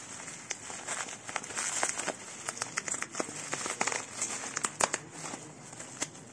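Packaging being crinkled and torn open by hand: an irregular run of crackling and sharp clicks, the loudest crack a little under five seconds in.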